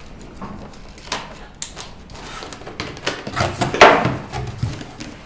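A large cardboard shipping carton being opened: a few sharp snaps as a utility knife cuts the plastic strapping and tape, then the cardboard flaps are pulled open with loud scraping and flapping, loudest about four seconds in.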